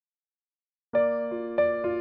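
Silence, then about a second in background music starts: a gentle melody on a piano-like keyboard, one struck note after another, each ringing on under the next.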